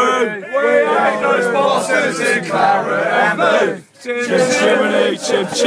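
A crowd of male football supporters singing and chanting together in a packed train carriage, with a brief pause about four seconds in.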